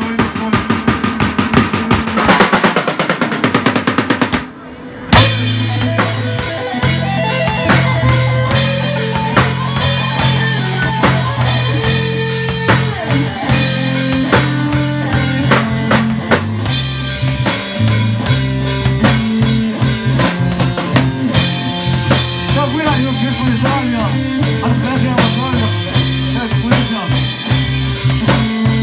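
Live rock band playing: a fast drum-kit fill for the first few seconds, a short break, then the full band comes back in with electric bass, drums, guitar and a singer.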